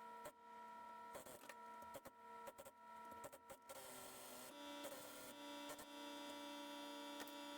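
Near silence: a faint steady hum made of several tones that shift slightly about four seconds in, with scattered light clicks.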